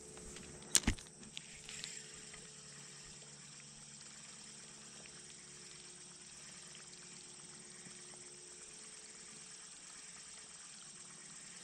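Spinning reel cranked steadily as the lure is retrieved, with a sharp click about a second in and two softer clicks just after. A faint, steady, high drone of insects runs underneath.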